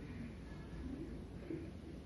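Faint rubbing of a whiteboard being wiped clean, over a low steady room hum.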